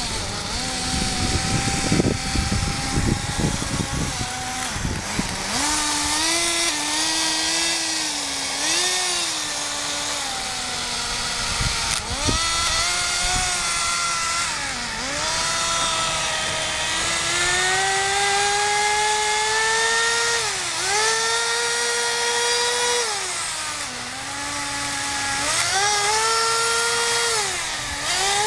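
Small .11 nitro glow engine of a Kyosho Nitro Blizzard radio-controlled tracked vehicle running on the move, its whine rising and falling with the throttle. Several times it dips sharply and climbs back. Low rumbling noise over the first few seconds.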